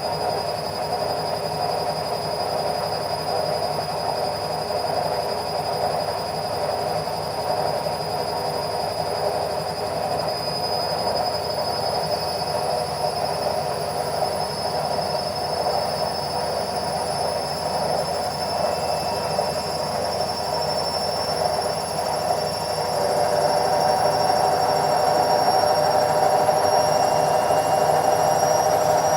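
Washing machine on its spin cycle: a steady mechanical hum with a high whine that slowly rises in pitch as the drum speeds up. The sound gets louder near the end.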